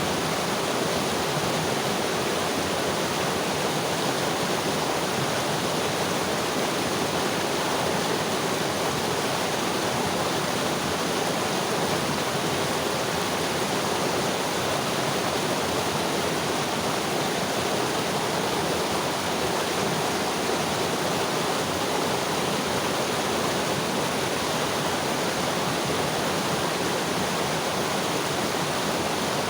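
Mountain river flowing: a steady, even rush of water that holds constant throughout.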